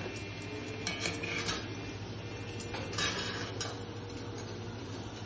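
A wire skimmer and spoon clinking and scraping against stainless steel pans as boiled gnocchi are moved from the cooking water into the frying pan. There are a handful of short metallic clinks, the clearest about a second in and about three seconds in, over a steady low hum.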